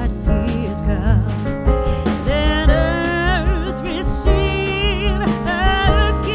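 Background song: a singing voice with vibrato over instrumental accompaniment and a steady bass.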